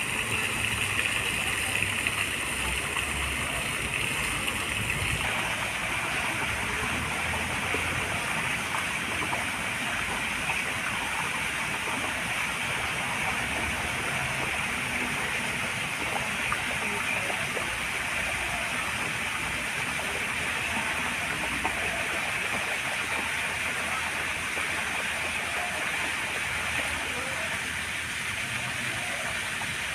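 Steady splashing of water from a garden fountain falling into a koi pond, with a slight change in tone about five seconds in.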